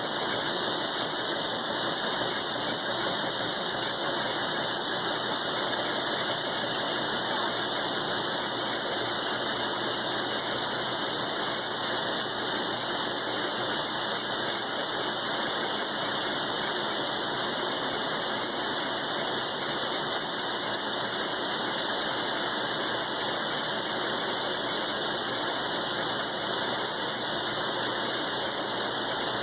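Large milling machine cutting thick steel plate with a roughing end mill: a steady, unbroken cutting noise with a strong high-pitched hiss.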